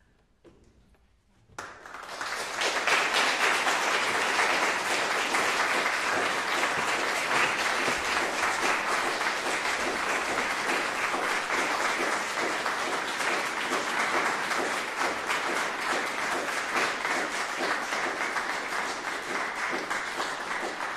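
Audience applause: dense clapping that breaks out about a second and a half in and carries on steadily, easing off slightly toward the end.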